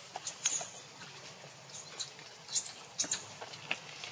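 Baby macaque giving four very high, thin squeals, each rising then falling in pitch. The first and longest comes about half a second in; three shorter ones follow at under-a-second gaps.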